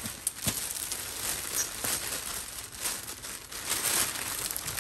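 Plastic packaging crinkling and rustling as it is handled and pulled open by hand, with many small crackles.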